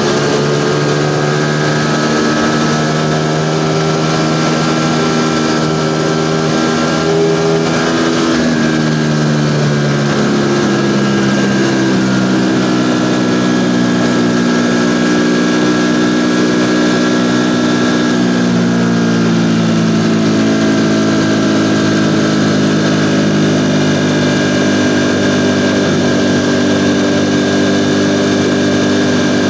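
Ducati Panigale V4 motorcycle's V4 engine running under way. Its pitch drifts slowly up and down, with a marked change about eight to ten seconds in.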